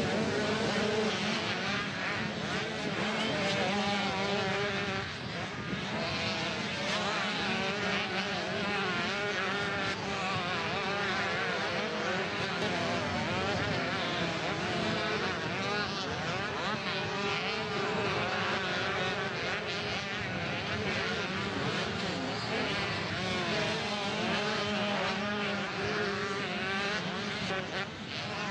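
A field of motocross bikes racing on a sand track, several engines revving at once, their pitches rising and falling constantly and overlapping as riders work the throttle through the turns and over the dunes.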